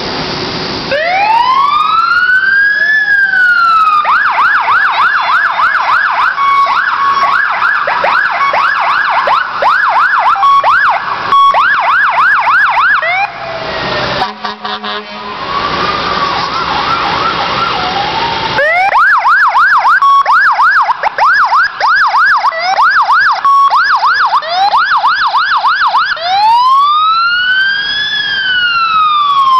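Emergency vehicle electronic sirens going by: a slow rising-and-falling wail switches to a fast yelp for several seconds, drops briefly, then cycles through wail and yelp again, ending on another wail.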